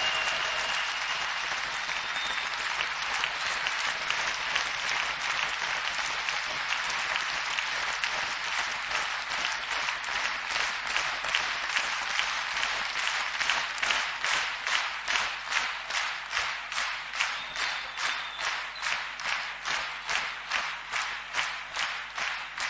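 Audience applauding in a hall. About halfway through, the clapping falls into a steady rhythm of roughly two claps a second, everyone clapping in unison.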